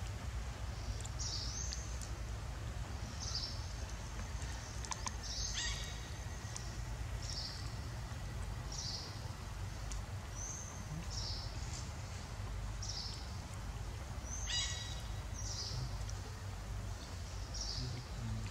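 A bird calling over and over, a short high call about every second and a half, with two louder, harsher calls about six and fifteen seconds in, over a steady low rumble.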